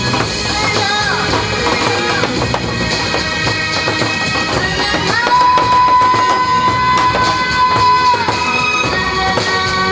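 Korean barrel drums, a large painted drum and a smaller one, beaten with wooden sticks in a fast rhythm over loud music. The music's reedy melody holds one long high note from about five seconds in to about eight.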